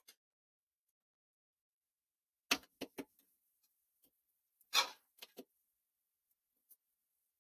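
Metal spatula knocking and scraping against a kadai while thick chicken masala is stirred: two short clusters of clicks and knocks about two seconds apart, the second one the loudest, with a last faint tick near the end.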